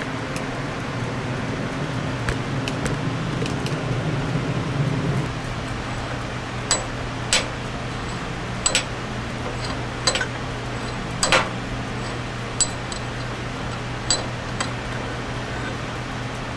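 Sharp metallic clinks, about nine spread over the second half, over a steady low hum: steel pieces or tools being handled and set down at a welding bench.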